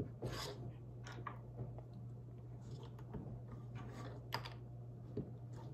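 Plastic Lego pieces being handled and sorted by hand: scattered light clicks and small rattles.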